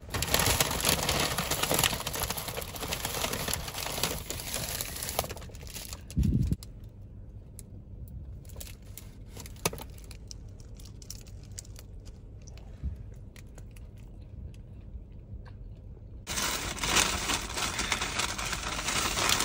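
Brown paper bakery bag crinkling and rustling as a hand reaches in for a donut. The rustling is heavy for about the first six seconds, with a low bump near the end of that stretch. It then drops to a few faint clicks before the crinkling starts again about three seconds before the end.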